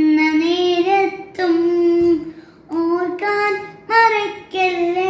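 A boy singing a slow melody unaccompanied, holding long notes across several short phrases with brief breaks between them.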